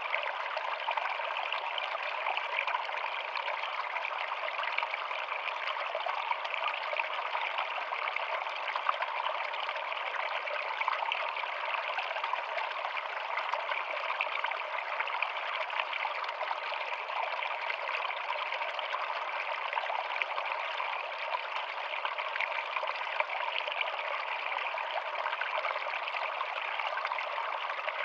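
Small stream trickling and splashing over rocks in a little cascade: a steady, even rush of water.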